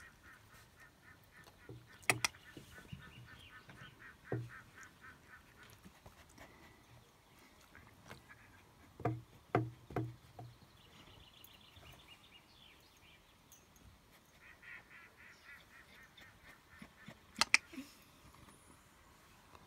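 A bird calling faintly in the background in rapid runs of short, evenly repeated notes, starting and stopping several times. A few sharp knocks stand out: two near the start, a cluster in the middle and the loudest near the end.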